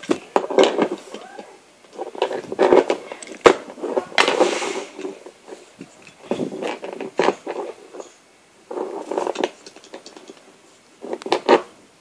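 LEGO plastic bricks and Technic parts clicking, rattling and scraping as a hand-built LEGO padlock is handled and its gear key is turned and pulled out, in uneven bursts of a second or so.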